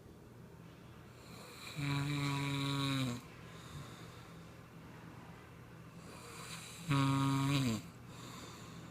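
Snoring: two long, loud snores about five seconds apart, each a steady low tone that drops in pitch as it ends, with softer breathing between them.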